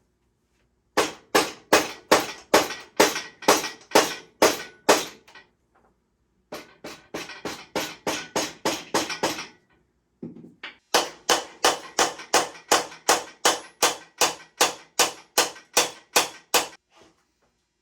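Metal being struck repeatedly with a hammer, about three sharp ringing blows a second, in three runs broken by two short pauses.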